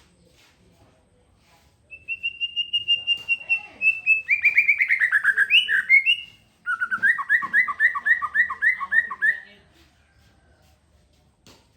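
A songbird singing: about two seconds in, a quick run of high notes that tumbles into a falling trill, then after a short pause a rapid phrase of paired notes repeated about four times a second before it stops.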